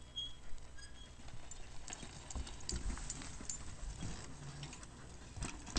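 Mountain bike rolling along a raised wooden plank bridge, its tyres knocking and clattering over the boards in an irregular run of hollow knocks.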